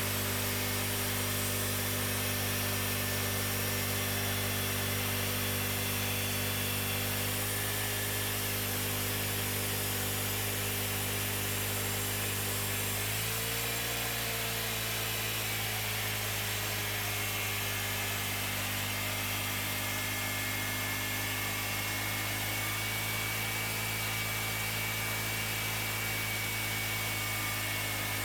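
Cooks 3238 full hydraulic sawmill running steadily, its engine hum changing note about seven seconds in and again with a brief pitch swing about thirteen seconds in.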